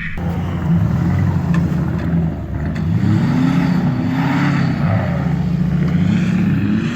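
Ford Excursion's V10 engine with a Flowmaster exhaust revving up and down several times as the truck, stuck in a snow hole, tries to pull free.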